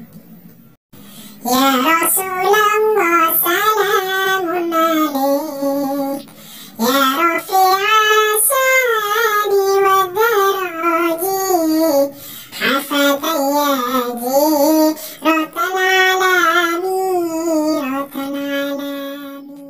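A high, child-like voice sings a sholawat melody in three long phrases, the last one held and fading out near the end.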